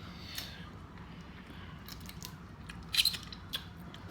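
Scissors snipping through crab leg shells: a few sharp cracks and clicks, the loudest cluster about three seconds in.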